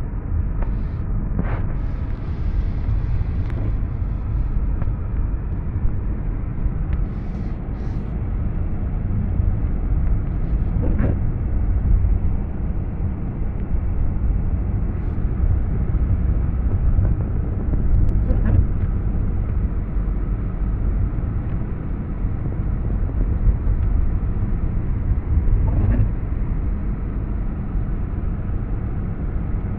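Car driving on a wet road, heard from inside the cabin: a steady low rumble of engine and tyres, with a faint click now and then.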